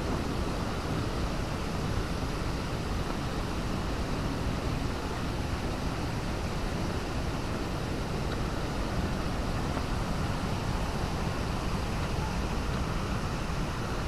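Steady rushing of a waterfall, an even wash of water noise with no breaks or changes.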